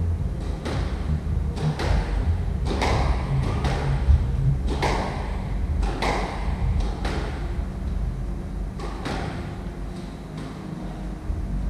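A squash rally: sharp hits of racket on ball and ball off the court walls, each ringing in the court's echo, coming every half-second to second and stopping after about nine seconds, over a steady low rumble.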